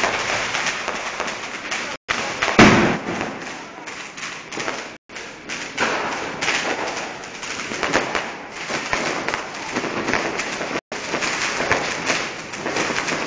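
Fireworks and firecrackers going off in a dense, continuous crackle, with one loud bang about two and a half seconds in.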